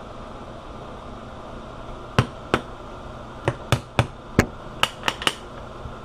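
About nine sharp taps struck in quick, uneven succession on a Viair 444C air compressor, starting about two seconds in, to knock loose its long-stuck bottom plate.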